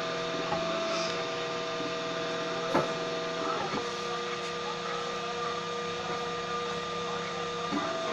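3D printer running, its stepper motors whining in steady held tones that jump to a new pitch a few times as the moves change. There is one sharp click about three seconds in.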